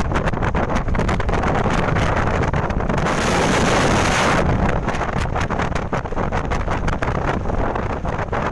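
Strong wind buffeting the microphone with a constant low rumble and flutter. About three seconds in, a louder rush of noise swells for about a second and a half, then dies back.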